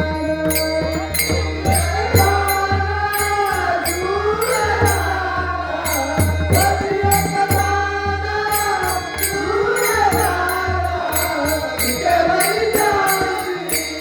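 Marathi Varkari devotional bhajan sung by a male lead singer, with hand cymbals clashing in a steady rhythm and a deep drum keeping time.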